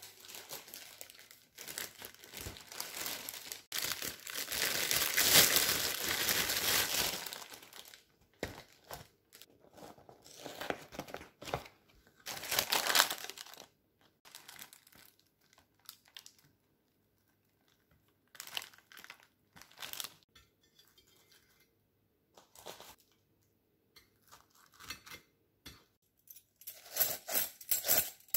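Plastic bag and cardboard packaging being rustled, crinkled and torn open by hand, as a box of pork cutlets is unpacked. A long stretch of loud rustling comes a couple of seconds in, then shorter intermittent crinkles, with one more loud burst about halfway through.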